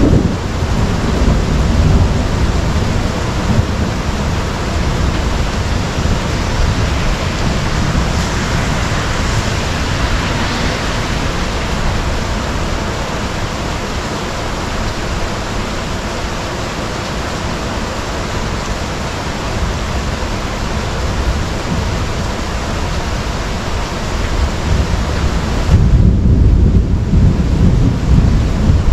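Heavy rain pouring steadily, a dense hiss over a low rumble of thunder. About three seconds before the end the hiss dips and a louder low rumble takes over.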